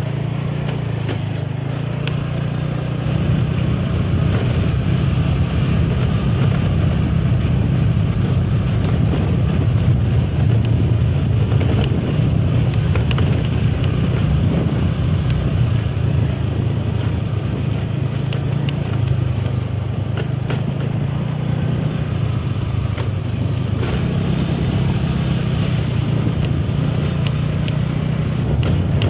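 A motor vehicle's engine running steadily on the move, a continuous low drone with road noise.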